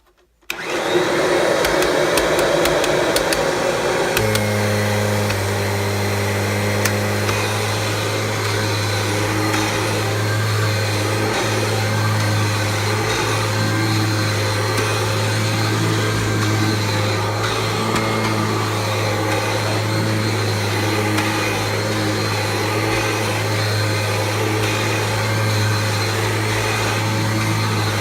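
1993 Kirby G4 upright vacuum cleaner switched on about half a second in and running steadily, with a few ticks in the first seconds. A deeper steady hum joins about four seconds in and holds.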